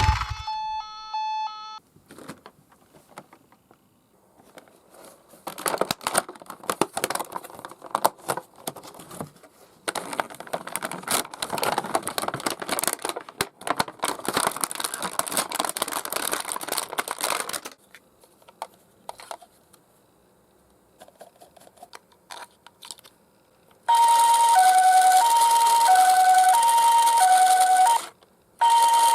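Plastic packaging crinkling and tearing for several seconds, with many small clicks. Then a toy ambulance's electronic siren plays a loud two-note hi-lo wail, alternating about once a second, breaks off for a moment near the end and starts again.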